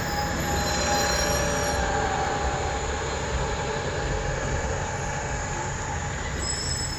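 Open-top double-decker tour bus driving past close by: steady engine and road rumble with a high-pitched squeal held over it, loudest about a second in.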